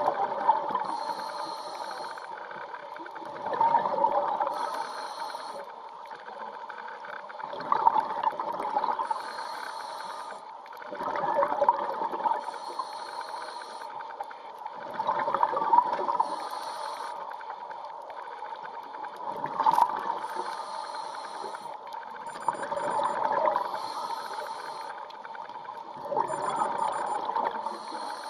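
Scuba diver breathing through a regulator: a rush of exhaled bubbles about every four seconds, each followed by the short hiss of an inhaled breath.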